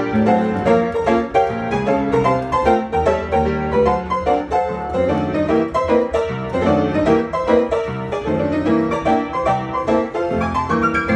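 Marshall & Wendell upright player piano, pumped with the foot pedals, playing a paper music roll: a steady stream of quick, many-noted piano chords and runs.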